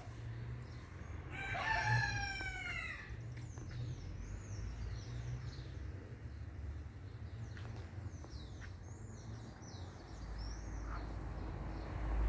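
A rooster crows once, a call of about two seconds that falls in pitch at its end, beginning just over a second in. Small birds chirp with short high calls throughout, over a low rumble that grows louder near the end.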